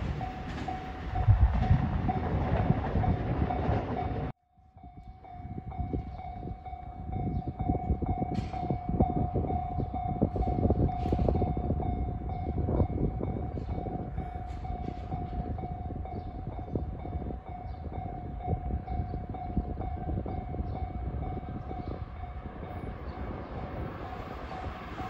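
Japanese railway level-crossing alarm ringing without a break over low rumbling noise, cutting out for a moment about four seconds in, then carrying on as a 521 series electric train approaches in the distance.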